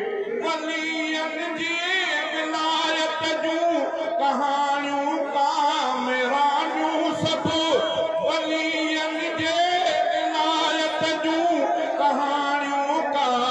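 A man chanting a Sindhi-Urdu nazm in a sung, melodic style, amplified through a public-address system, with long wavering held notes.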